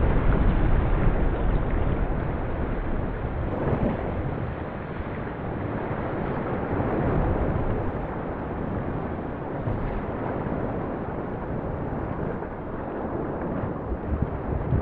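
Composed soundscape evoking a volcanic eruption: a dense, low rumbling noise, heaviest in the bass, that swells and ebbs, with a few sharper knocks near the end.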